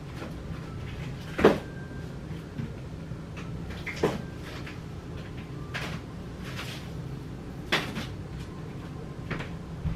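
Five short knocks and clatters of household objects being handled, about every two seconds, over a low steady hum.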